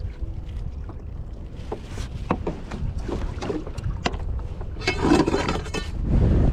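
Wind rumbling on the microphone aboard a fishing kayak, with scattered knocks and clicks of gear being handled, and a louder noisy burst of handling or water noise about five seconds in.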